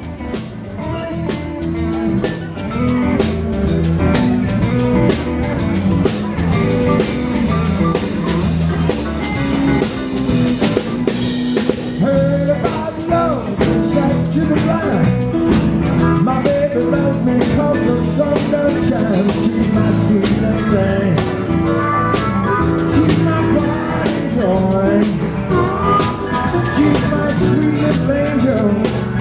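Live blues-rock band playing: drum kit, electric guitar, electric bass and keyboards, with a man singing lead.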